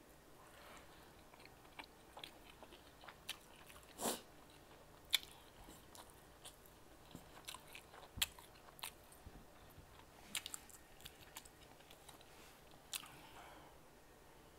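Close-miked chewing of homemade ground-beef meatballs in sauce: faint wet mouth clicks and smacks, scattered and irregular, with a few louder ones about 4, 5 and 8 seconds in.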